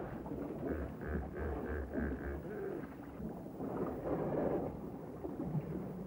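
Hippopotamus calling from the water: a run of about six rhythmic grunts, roughly three a second, ending about two and a half seconds in, over a steady background rumble.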